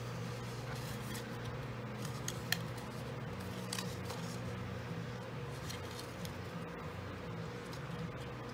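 Cardstock being folded by hand and creased with a plastic bone folder: soft paper rustling and scraping with a few light taps, over a steady low hum.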